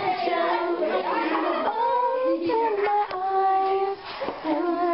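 Young people's voices singing long held notes, with several voices at once and talk mixed in underneath.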